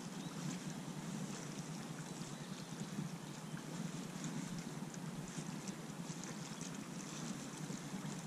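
Choppy lake water lapping and splashing against a flooded bank, with wind rumbling on the microphone. It is a steady wash, flecked with small, irregular splashes.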